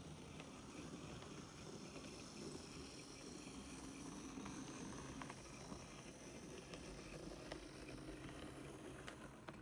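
Hornby Class 08 model shunter running on track: a faint, steady motor hum with scattered light clicks.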